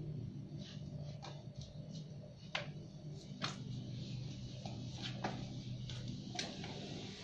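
Irregular sharp clicks and taps of young binturongs' claws on a tiled floor as they scramble about playing, over a steady low hum.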